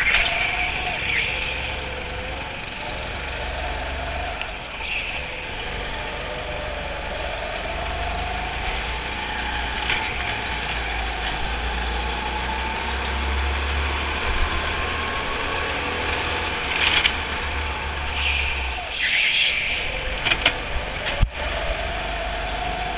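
Go-kart engines running on a track, the engine note rising and falling as the kart speeds up and slows through the corners, over a steady low rumble. A few short, loud noisy bursts come near the end.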